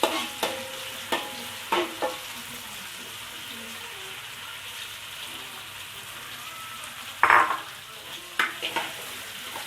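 Onions sizzling steadily as they fry in hot oil in a pan. A spatula scrapes and knocks against the pan a few times in the first two seconds and again in a louder cluster about seven seconds in.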